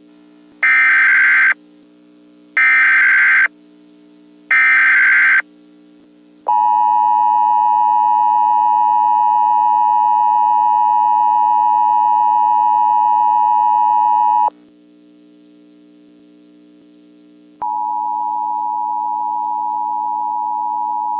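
Emergency Alert System header: three short bursts of screeching digital data tones about two seconds apart, then the two-tone EAS attention signal held steady for about eight seconds. After a few seconds with only a faint low drone, a quieter single steady tone begins near the end.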